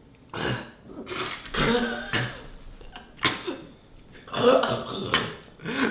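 People chugging cans of Coke, coughing and spluttering in five or so short bursts.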